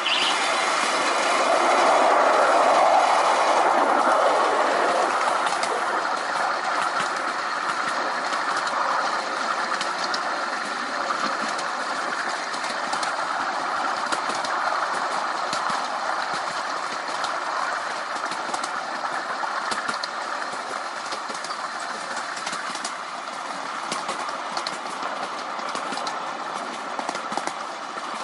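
Ride-on miniature railway train running along the track: a steady rumble of wheels on rails with light clicking, louder for the first few seconds.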